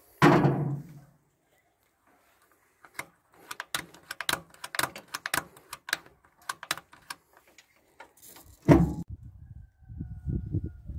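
Knocks and clicks of hands working on an old T-40 tractor's engine, with no engine running: a heavy thump just after the start, a run of quick sharp clicks and knocks in the middle, and another heavy thump near the end followed by irregular low knocking.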